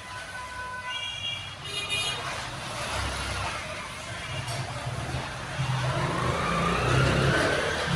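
Road vehicle engine, likely a truck, running steadily and then speeding up, its pitch rising over the last two seconds, with a short horn toot about two seconds in.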